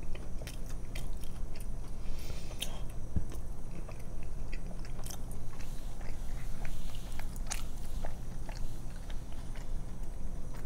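Close-up chewing of a mouthful of fried fish sandwich, with many small mouth clicks and crunches.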